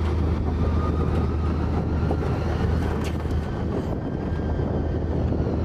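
Side-by-side off-road vehicle running steadily along a gravel track, heard from inside the open cab: a constant low engine hum over the rumble of tyres on gravel.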